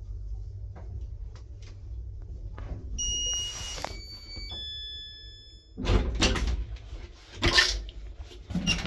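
1970s IFMA traction elevator car humming low as it runs, then a three-note electronic arrival chime stepping down in pitch about three seconds in. After that the car's manual folding doors are pushed open with several loud knocks and thuds.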